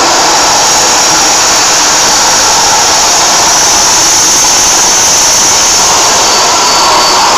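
Jet aircraft engines running: a loud, steady rush with a thin high whine on top.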